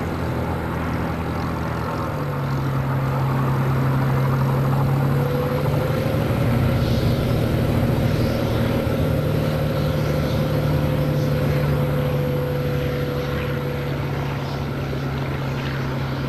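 Hawker Hurricane's Rolls-Royce Merlin V12 engine running steadily at low power while the fighter holds on the runway waiting for takeoff clearance. Its note steps up slightly about two seconds in, then stays even.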